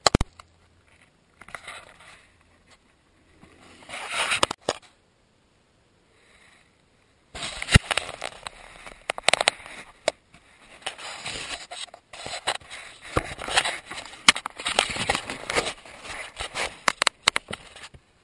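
Close scraping, rustling and crackling of clothing and dry brush against a body-worn camera's microphone, with many sharp clicks. Soft and patchy for the first few seconds, then dense and continuous from about seven seconds in.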